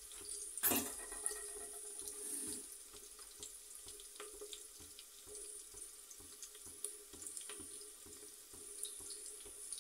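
Onions and spices frying in hot oil in an open aluminium pressure cooker on a gas stove: a steady sizzling hiss with small crackles, and one sharp knock about a second in.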